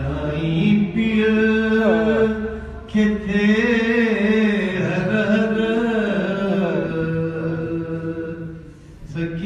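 Solo voice chanting a Sindhi salam, a Shia devotional elegy, in a slow melody with long held, gliding notes. There is a short pause for breath near the end.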